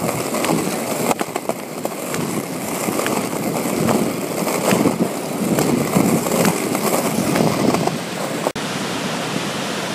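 Skateboard wheels rolling fast over concrete, a loud rolling noise with scattered clicks from bumps and joints. About eight and a half seconds in it cuts off abruptly and steady ocean surf takes over.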